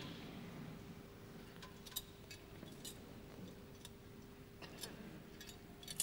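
Scattered light metallic clinks and ticks, about seven in all with the sharpest near the end, typical of a thurible's chains while the Gospel book is incensed. A faint steady electrical hum runs underneath.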